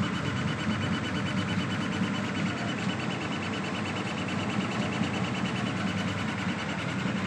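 Laser cutting machine running: a steady whirring hum with a fast, even ticking.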